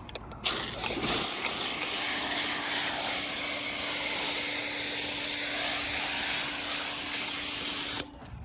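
Active 2.0 electric pressure washer running and spraying soap through a foam cannon: a loud spray hiss over a steady motor hum. It starts about half a second in and cuts off suddenly near the end.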